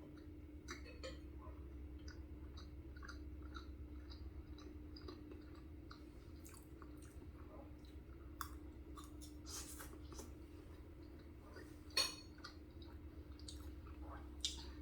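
Close-up chewing of macaroni and cheese with toasted French bread: soft, wet mouth clicks and smacks, with a sharper click about twelve seconds in and another near the end, over a faint steady hum.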